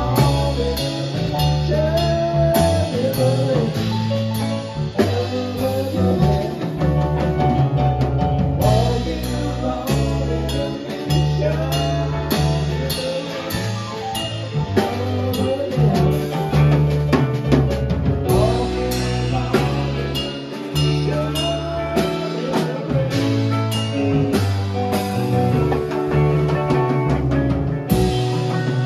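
Live rock band playing: drum kit, electric bass, electric guitar and keyboard together in a steady groove.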